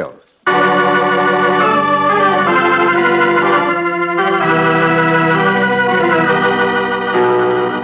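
Organ playing the radio show's musical theme: sustained chords that change several times, starting about half a second in after a brief break.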